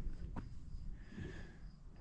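Footsteps, with a few sharp clicks, and a person's breathing heard as a hiss about once every two seconds.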